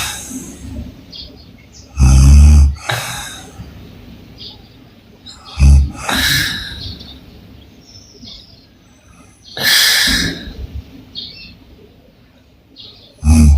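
A woman snoring with her mouth open. Short, loud, low buzzing snores come every few breaths, each followed by a long airy breath, and one breath in between passes without a snore.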